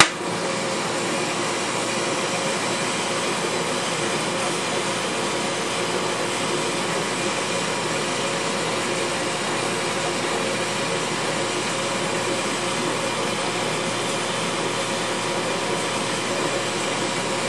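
Glass lathe's gas burner lighting with a brief pop at the start, then a steady hissing flame heating the quartz tube before it is bent.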